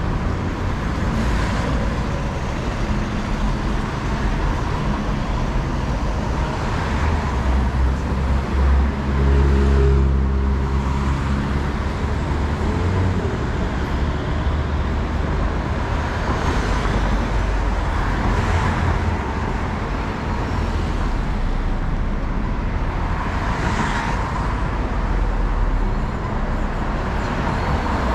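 City street traffic: cars passing one after another with a steady road hiss. About nine to ten seconds in, the deep engine of a heavier vehicle runs loudest.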